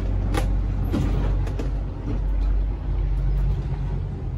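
Catamaran's engine running while motor sailing, a steady low drone. A brief high squeak comes about half a second in.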